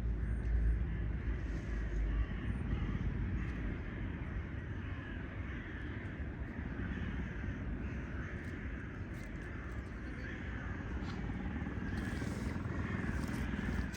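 Many birds calling over one another, with a low rumble that fades out about two seconds in.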